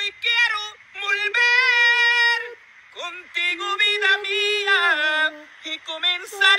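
High-pitched solo singing voice, wordless and yodel-like, in several drawn-out phrases; the longest note is held about a second and a half before short gaps between phrases.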